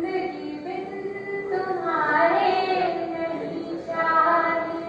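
A woman singing a line of Hindi poetry into a microphone, in three long phrases of held notes that slide up and down in pitch.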